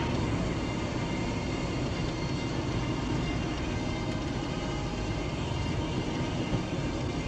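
Steady driving noise of a car on the road: a constant rumble of tyres and engine with no sudden changes.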